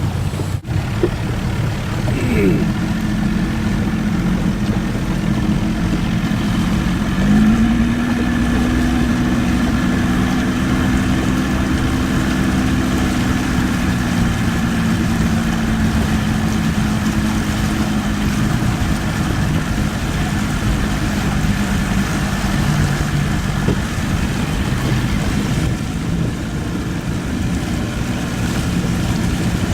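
A motorboat's engine running steadily over constant wind and water noise. Its pitch slides up about seven seconds in, then holds.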